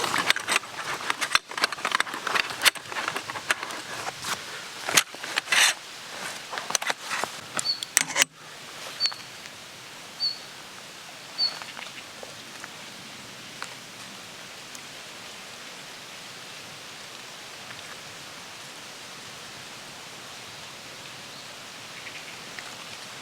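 Outdoor woodland ambience: dense rustling and clicking for about eight seconds, then an abrupt change to a steady hiss in which a bird gives four short, high chirps about a second apart.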